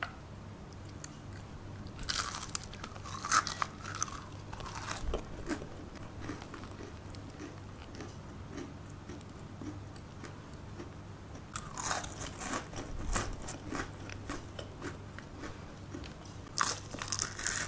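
Thin, crisp crepes (kue leker) cracking and crunching as they are broken apart by hand, in three bursts of brittle crackles; the crunch is the sign of a fully crisp, brittle crepe.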